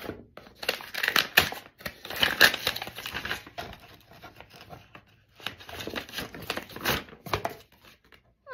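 A paper envelope being torn open by hand, with rough ripping and crinkling of paper in two spells, the first near the start and the second about two-thirds of the way through.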